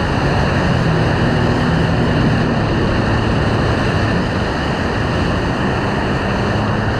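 Steady loud rush of whitewater around a surfboard riding a wave, with wind on the microphone, and a low steady hum of a jet ski engine running close by underneath.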